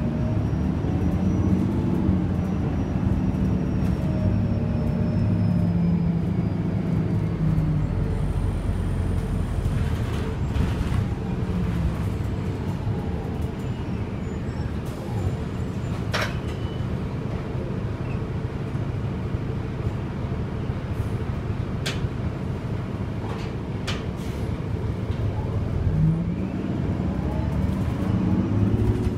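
Cabin sound of an Orion VII NG hybrid-electric bus under way: a steady low rumble of drivetrain and road. Near the start and again near the end a whine glides up and down in pitch, and a few sharp rattles come around the middle.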